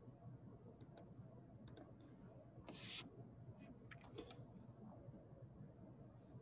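Faint computer mouse clicks, some in quick pairs, against near-silent room tone, with one brief soft rush of noise midway.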